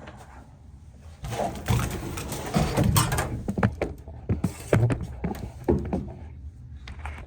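A run of irregular knocks and thuds, like objects being handled and set down, starting about a second in and lasting about five seconds.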